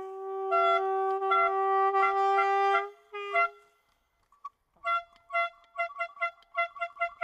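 Handheld compressed-gas air horn sounding one long steady blast of about three seconds, then, after a short pause, a run of short, higher-pitched toots, about four a second. The horn signals the end of the game.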